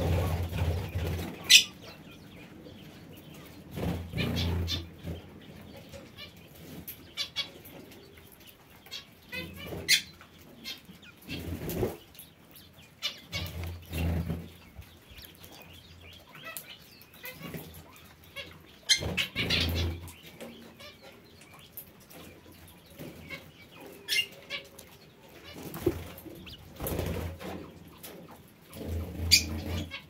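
Birds in an aviary: wings flapping in short bouts every few seconds, with brief high parakeet chirps and a few sharp clicks in between.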